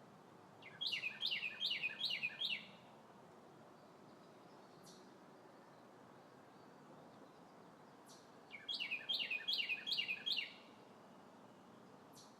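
Northern cardinal singing: two phrases of about five quick, down-slurred whistles each, with a pause of about six seconds between them.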